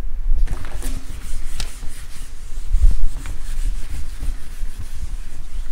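Board duster rubbing across a chalk blackboard in repeated wiping strokes, erasing chalk.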